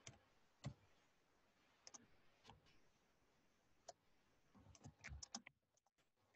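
Faint, irregular clicks of computer keyboard keys being typed, single keystrokes spread out and then a quick run of several about five seconds in.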